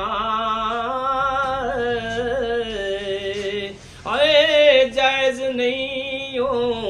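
A man's unaccompanied voice singing Punjabi devotional verse: one long held, wavering phrase, a brief break about four seconds in, then a second, louder held phrase.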